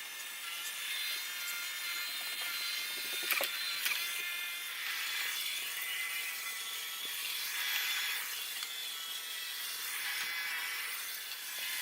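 iRobot Roomba i7+ robot vacuum running while it cleans: a steady whir of its motors and brushes with a few faint high tones, growing louder and softer as it moves. Two sharp clicks come about three and a half seconds in.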